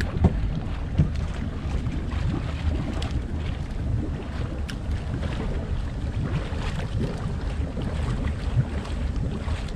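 Steady wind buffeting the microphone on an open boat, a low rumbling noise, with a few faint small knocks.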